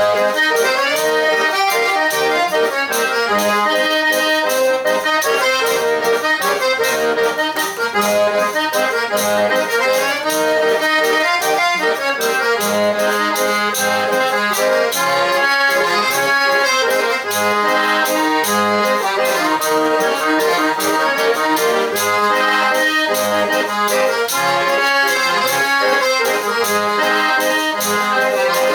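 Eight-bass button accordion (pé de bode) playing a lively traditional northeastern Brazilian dance tune, with chords and melody over a steady beat.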